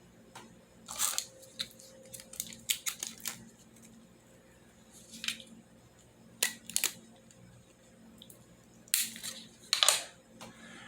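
Hands working a plastic straw and tape against a tablet case: irregular rustles, clicks and short scratchy scrapes, the loudest about a second in, around six to seven seconds, and near the end.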